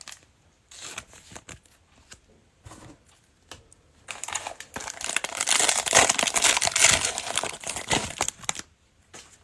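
Foil trading-card pack wrapper being handled, torn open and crinkled: a few light clicks and rustles, then a dense crackling crinkle about four seconds in that lasts some four seconds and stops shortly before the end.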